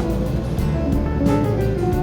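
Background music with plucked guitar and held string notes, over a steady low rumble.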